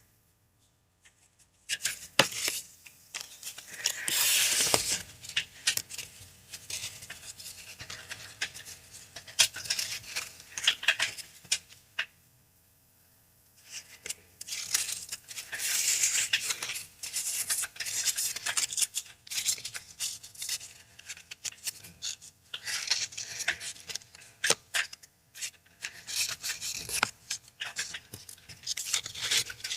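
Paper and packaging being handled: crinkling, rustling and tearing in irregular bursts, starting about two seconds in, with a short pause about twelve seconds in.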